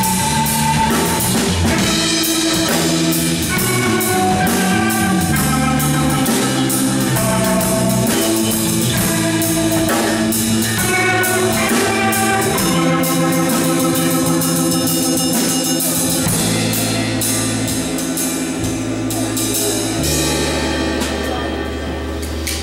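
Live funk fusion band playing: electric guitar, bass guitar, drum kit and keyboard. The drumming thins out about two-thirds of the way through, and the band settles on long held low notes near the end as the loudness eases off.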